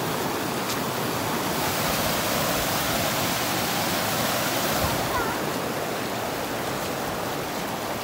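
Steady rush of fast-flowing stream water.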